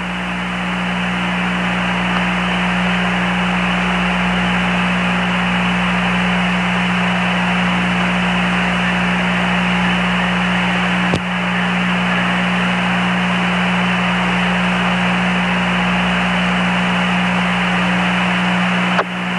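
Steady static hiss of an open space-to-ground radio link between transmissions, thin and with no highs like a phone line, over a low steady hum. A single click comes about eleven seconds in, and the signal dips briefly near the end.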